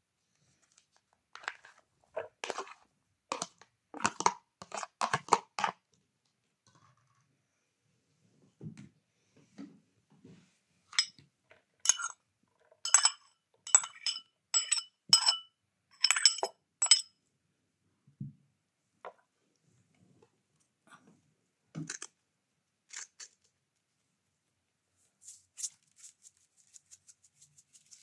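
Metal spoon knocking and clinking against bowls as crumbled food is scraped and tipped into a salad bowl. A cluster of knocks comes first, then about a dozen ringing clinks in quick succession, then a few scattered taps.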